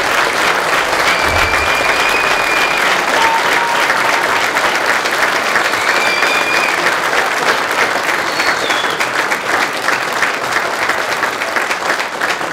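A large crowd applauding steadily, with a few brief high-pitched whistles or calls among the clapping. The applause eases slightly near the end.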